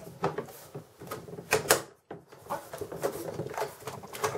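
Plastic snap clips of a computer's rear cover clicking into place as the panel is pressed down by hand along its edge. There are a few short clicks: a sharp pair about a second and a half in, then softer ones near the end.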